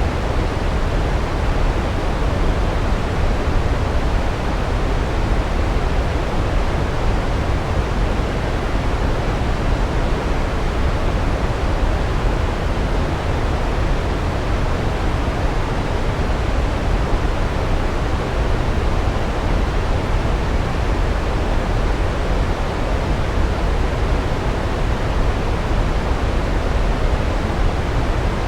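Big waterfall heard from close: a loud, steady rumble of falling water, heaviest in the low end, unchanging throughout.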